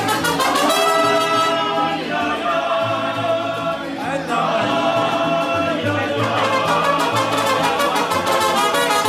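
Background music with a steady beat, brass and a singing voice.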